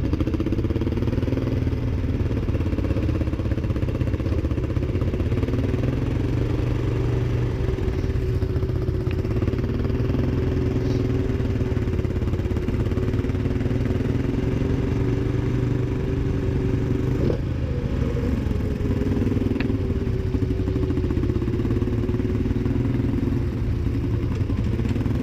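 Polaris Sportsman ATV engine running at a steady speed while riding, heard from the rider's seat, with a single short knock about seventeen seconds in.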